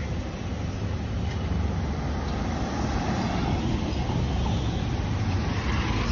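Steady road traffic noise: everyday cars passing close by, engines and tyres over a low rumble, with a small black-and-yellow taxi going past and then a van near the end.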